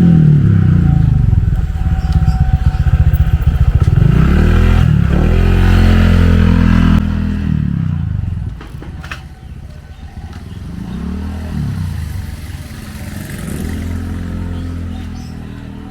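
Motorcycle engine running close by, its pitch rising and falling several times as it revs. Loud for the first seven seconds, then dropping away about eight seconds in, with quieter rises in pitch after.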